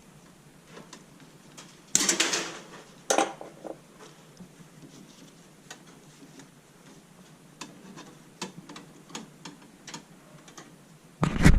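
Hand work on a ground clamp and copper ground wire at a black iron gas pipe: scattered light metallic clicks and ticks, two louder scraping rustles about two and three seconds in, and a heavy bump near the end.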